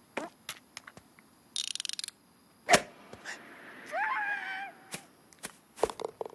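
Cartoon slapstick sound effects: scattered clicks, a short high buzzing rattle, and one sharp loud hit a little under three seconds in. A short wavering squawk from a cartoon character follows about four seconds in.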